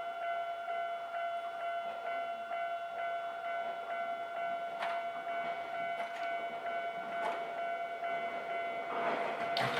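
Japanese level crossing's electronic warning bell ringing, a steady repeating ding about twice a second. A few sharp clicks come midway. Near the end a train's noise rises as it approaches.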